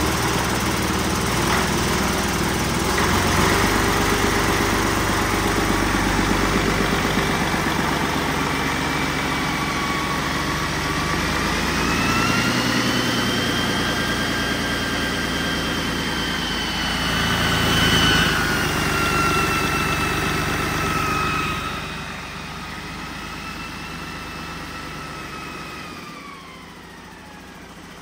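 Detroit Diesel DD13 12.8 L inline-six diesel running on a test stand, a steady drone with a high whine that rises and falls slowly in pitch. Near the end it quietens and the whine glides down.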